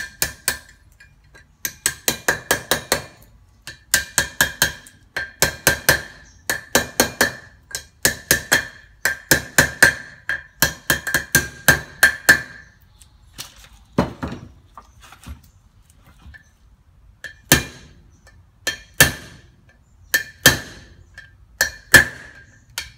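Steel hammer tapping an old, slit bearing race used as a driver, seating a new bearing race into a Toyota Land Cruiser wheel hub. Quick runs of ringing metallic taps for about the first twelve seconds, then slower single blows a second or more apart.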